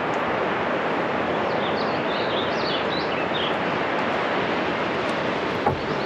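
A steady rushing noise of outdoor ambience, even in level throughout, with a few high bird chirps about two to three and a half seconds in.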